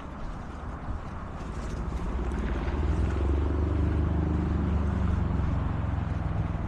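A motor vehicle's engine hum swelling about two seconds in and easing off near the end, as it passes.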